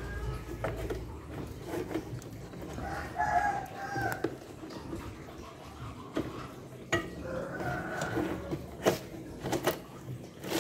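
A rooster crows about three seconds in and a chicken clucks later on. Scattered sharp clicks and knocks come from a hand working a speedometer cable behind a scooter's plastic front panel, the loudest near the end.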